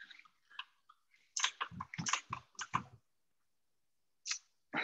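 Computer keyboard typing: a quick run of clicks and taps lasting about a second and a half, followed by a short hiss near the end.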